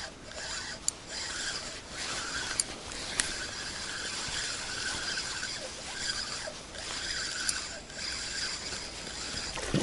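Spinning reel being cranked to retrieve line while playing a hooked zander, its gears giving a steady rasping whir in spells of a second or two with short breaks between turns.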